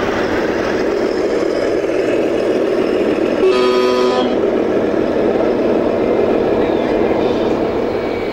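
A vehicle horn sounds one short blast of under a second, about three and a half seconds in, over steady background noise.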